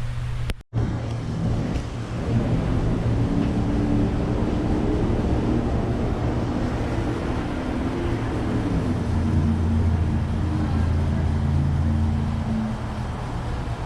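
A motor or engine running, a steady low hum with tones that shift in pitch over it; the audio drops out for an instant about half a second in.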